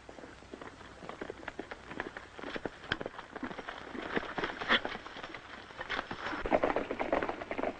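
Horses galloping: a dense, irregular clatter of hoofbeats that grows louder over the seconds as the riders come closer.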